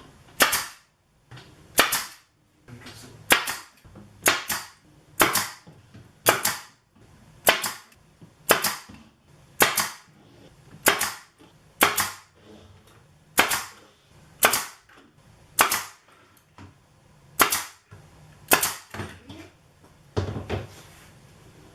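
Pneumatic brad nailer firing 1 1/4-inch brad nails into MDF panels, a sharp shot about every second, some seventeen in all.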